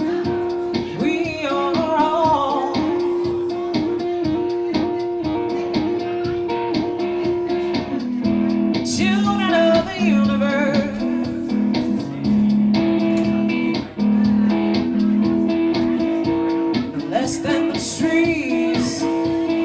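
Live solo performance on electric guitar: a singer accompanies themselves, with a few sung phrases, some with vibrato, over steadily played guitar chords.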